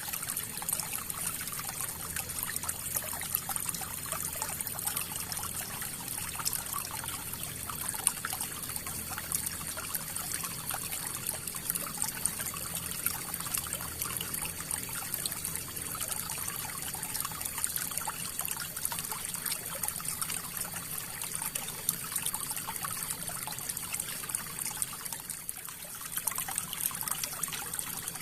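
River water flowing and trickling: a steady rush of water full of small, crackling splashes.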